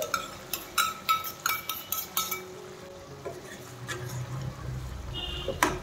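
Steel spoon clinking and scraping against a metal frying pan as ginger-garlic paste is knocked off it onto the chicken: a quick run of sharp clinks in the first two seconds or so, then quieter, with one more clink near the end.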